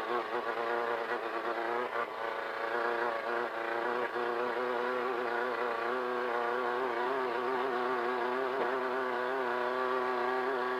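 Class 1500 desert race car's engine running hard at steady high revs, its pitch wavering slightly, heard from inside the car.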